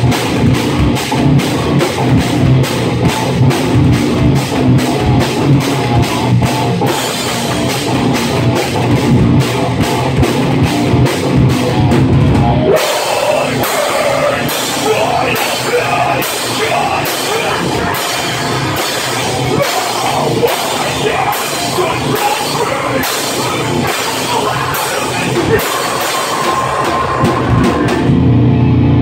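Live rock band playing loud: drum kit with steady cymbal hits over distorted electric guitar and bass. Partway through the low end thins out, and near the end the drums stop, leaving guitar ringing.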